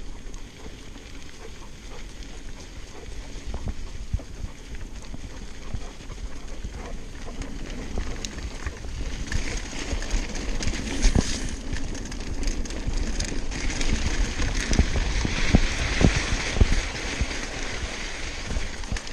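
Trance Advanced SX mountain bike ridden over a dirt and sandy trail: tyres rolling on loose ground, with knocks and rattles from the bike over bumps and wind rumbling on the microphone. It gets louder and rougher about halfway through, with a run of sharp knocks.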